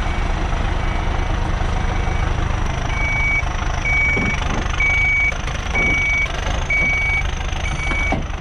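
Heavy diesel construction equipment running steadily, with a reversing alarm beeping about once a second, louder from about three seconds in.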